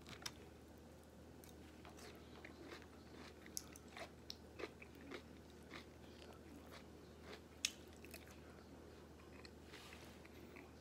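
Faint chewing of food, with soft mouth clicks and smacks scattered throughout and one sharper click about seven and a half seconds in.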